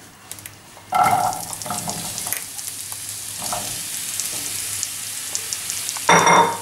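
Diced courgette hitting hot oil in a frying pan: a loud sizzle starts suddenly about a second in and carries on steadily with fine crackling. Near the end there is a brief, louder ringing clink.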